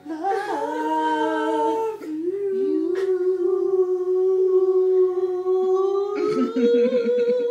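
A man singing without accompaniment in a high voice, holding long steady notes. He holds one note for about four seconds, then slides up to a higher note near the end.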